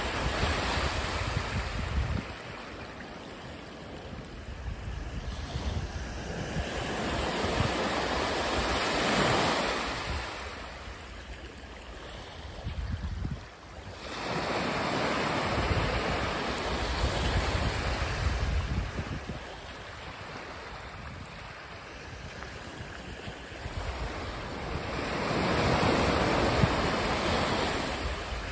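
Small sea waves breaking and washing up a sand and shell beach, the surf swelling and fading every several seconds. Wind buffets the microphone now and then with a low rumble.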